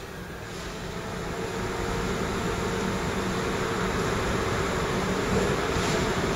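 DB class 422 S-Bahn electric multiple unit running along the platform, with a steady electric hum in two pitches over the rumble of wheels on rail. The sound grows louder over the first couple of seconds as the train draws closer, then holds.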